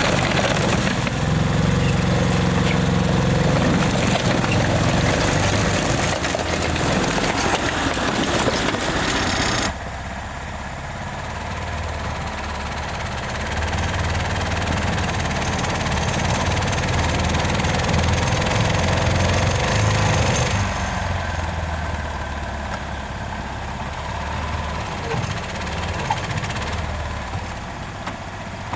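Small engine of an Argo 6x6 amphibious ATV running hard as it churns through mud on chained tires, with a rattling low rumble. About ten seconds in the sound cuts to a quieter, steadier engine run.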